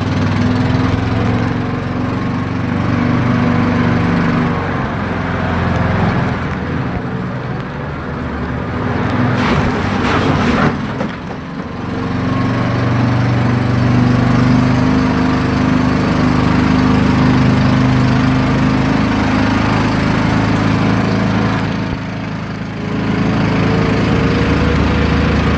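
Small off-road buggy (UTV) engine running as it drives a dirt trail, its note rising and falling with the throttle. A brief burst of noise comes about ten seconds in.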